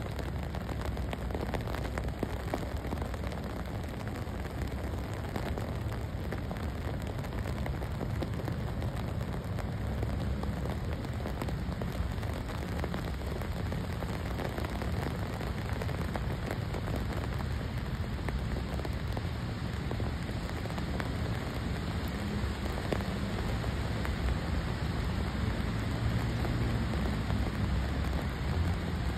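Steady rain mixed with snow falling onto wet asphalt and grass, an even hiss of drops with a low rumble underneath.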